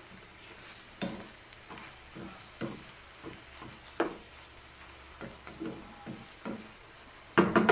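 A wooden spatula stirs chicken and pork pieces in a nonstick frying pan, scraping and knocking against the pan in irregular strokes, with a louder double clatter near the end. The meat sizzles faintly underneath.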